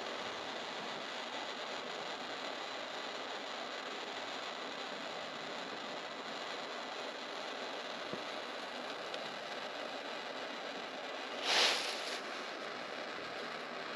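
Hand torch flame hissing steadily while heating a wire to solder it, with a brief louder hiss near the end.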